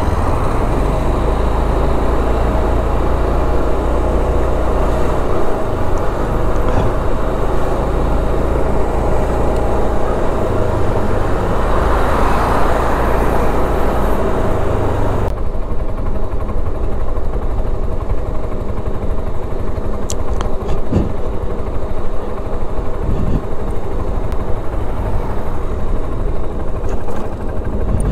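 Suzuki Burgman 400 scooter's single-cylinder engine running under way, with a steady rush of wind noise over it. About halfway through, the hiss of the wind drops away abruptly.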